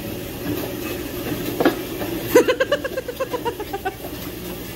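A burst of laughter about two seconds in: a quick run of breathy 'ha's that falls in pitch and fades over a second and a half.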